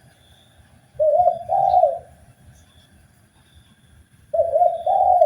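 Spotted dove (tekukur) cooing: two phrases about three seconds apart, each a quick pair of short coos run into a longer held coo.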